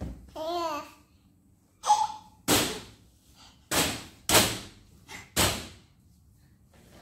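A baby babbles briefly in the first second, then slaps his hands down on a round plastic mesh grille about four times, each slap a loud smack that rattles and fades quickly.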